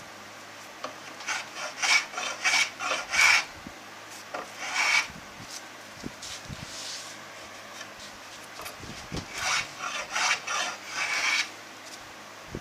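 Small block plane shaving wood off a guitar neck blank's headstock in short scraping strokes, several in quick succession, then a pause, then another run of strokes: the glued-on headstock ears being planed back off.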